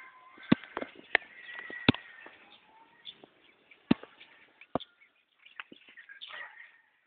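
Birds chirping in the background, broken by five sharp knocks spread over the first five seconds.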